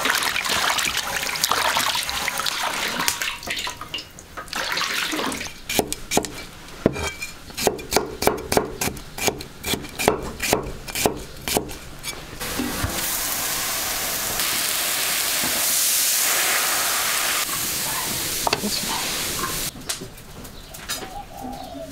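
Kitchen work with water and utensils: splashing water, then a run of sharp knocks, about three a second, lasting several seconds, then a steady hiss that stops abruptly near the end.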